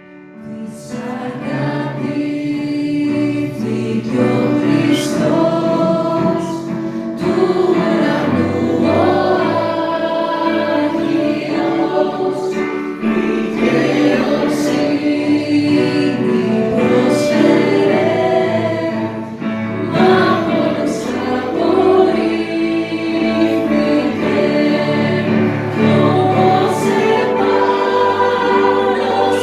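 A choir singing a hymn. It starts at the opening and swells up over the first couple of seconds.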